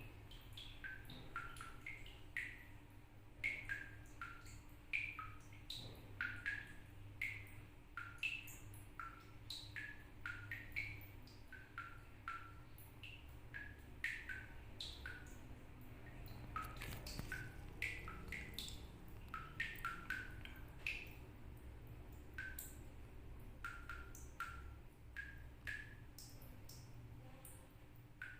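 Water drops falling from a tap, each landing as a short pitched plink. The plinks come irregularly at roughly two a second, at shifting pitches, so they form a music-like, drum-like patter.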